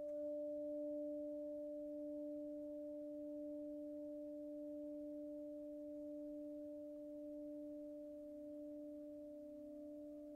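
Singing Ring overtone bowl ringing: a long sustained hum on two steady tones an octave apart, with faint higher overtones, slowly dying away. Near the end a second, slightly different tone comes in beside the first.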